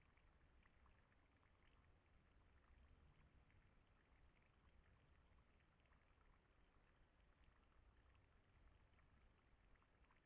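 Near silence: faint low rumble and hiss, with scattered faint ticks.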